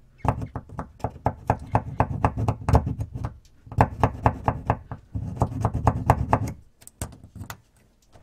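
Small hand file rasping on the metal contacts of a fuel-tank level sender in quick strokes, about five a second, in three runs with short pauses, then a few light clicks near the end. The contacts are being filed to clear suspected corrosion because the gauge reads nothing.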